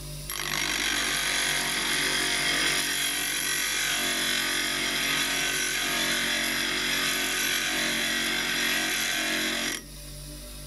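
Steel chisel being ground on a bench grinder's stone wheel: a loud, steady grinding hiss that starts just after the beginning and stops suddenly about a second before the end. The bevel is being ground back to remove the old sharpened edge.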